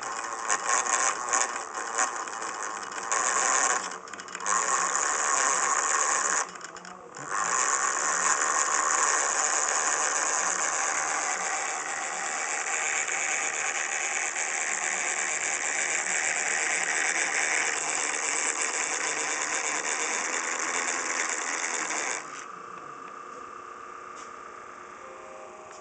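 Miniature dynamo-style electric motor driving a scale-model drill press through a flat belt, running with a steady high whir. It is uneven for the first several seconds while the bit drills a thin copper plate, with two brief drops. The sound falls away sharply about 22 seconds in.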